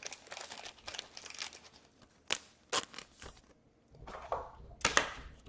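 Trading cards and their packaging being handled: a crinkling rustle for the first couple of seconds, then three sharp taps about half a second apart, then more rustling.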